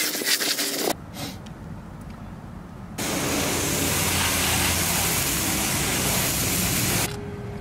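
A bristle brush scrubbing a fiberglass boat hull in quick strokes, then, about three seconds in, a garden hose spray nozzle hissing steadily as it rinses hull cleaner off the hull and splashes the pavement, cutting off sharply about a second before the end.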